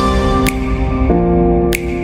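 Background music: held synthesizer chords that change about a second in, with a sharp percussive hit near the start and another near the end.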